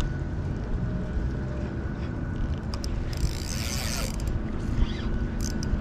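Shimano Vanford spinning reel being wound in during a lure retrieve, its gears whirring and clicking, over a low steady rumble, with a brief hiss about three seconds in.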